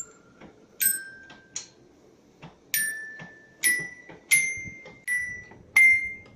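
Toddler's Little Tikes toy piano, its keys striking metal xylophone bars: about eight single notes, each ringing briefly, stepping mostly up the scale.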